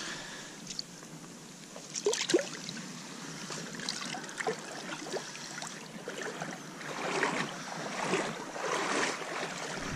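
Water splashing and sloshing in irregular surges, with a couple of sharp knocks about two seconds in.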